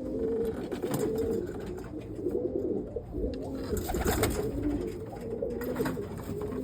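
Several roller pigeons cooing at once, their low calls overlapping throughout, with a few brief clicks among them.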